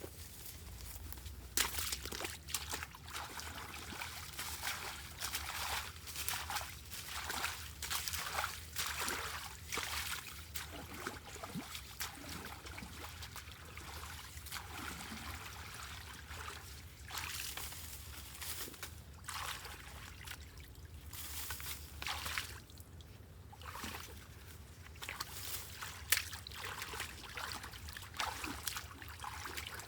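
Floodwater trickling and sloshing, with frequent irregular splashes.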